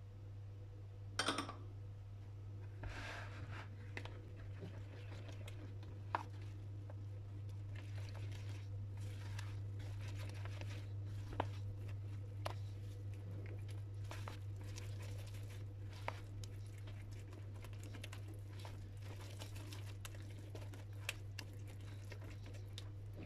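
Silicone spatula stirring flour and water into a wet dough in a plastic bowl: soft, irregular scraping and sticky mixing sounds with occasional light clicks of the spatula against the bowl. A steady low hum lies underneath.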